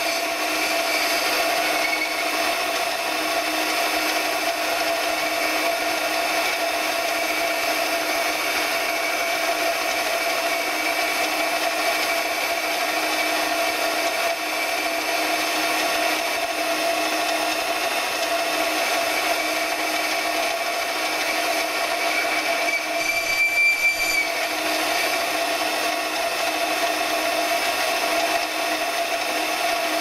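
A small bench metal lathe running steadily, its motor and gearing giving a steady hum and a high whine, while a tool cuts the internal thread in a steel adapter. The high whine briefly grows louder about three quarters of the way through.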